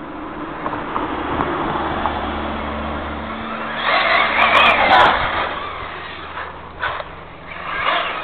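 1:8 scale electric RC buggy on a 6S LiPo pack driving fast on asphalt: motor and drivetrain whir with tyre noise, swelling to its loudest as it passes about four seconds in and fading as it moves away.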